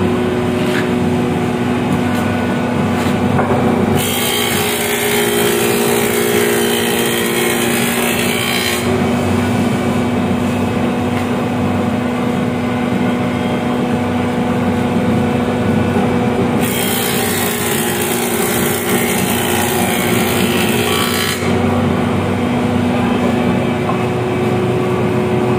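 Combination surface-and-thickness planer running with a steady hum, its cutter block twice planing a wooden board, each pass a loud hiss of about five seconds, the first about four seconds in and the second past the middle.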